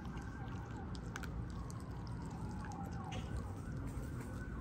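A French bulldog crunching on raw chicken: scattered sharp bites and crunches. Under them, a faint siren wails, sliding slowly down and back up.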